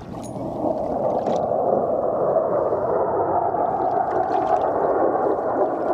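Jet airplane passing high overhead, a steady rushing rumble that swells during the first second and then holds.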